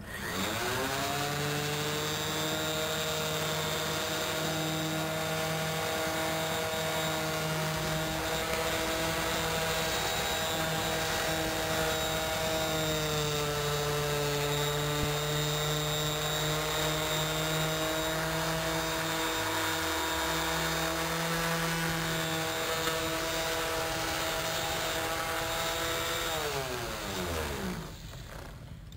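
Electric random orbital finishing sander spinning up, then running steadily while polishing a chrome exhaust pipe with a cloth and polishing paste. Its pitch dips slightly about halfway through, and near the end it is switched off and winds down.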